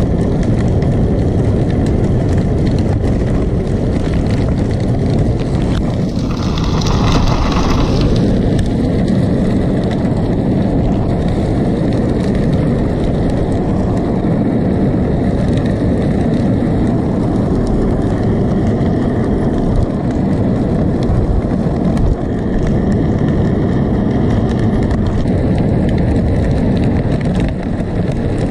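Steady wind rush on the camera microphone mixed with bicycle tyres rolling on wet pavement during a ride, with a brief sharper hiss about six seconds in.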